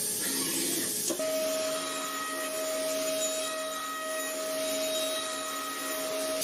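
CNC machine motor whining at a steady pitch, settling onto a steady speed after a click about a second in.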